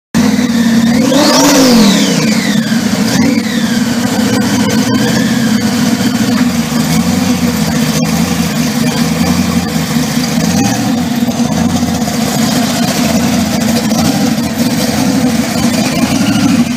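Supercharged 572 Chevrolet big-block V8 in a 1969 Camaro SS, revved hard once about a second in and blipped again at about three seconds, then settling to a steady idle.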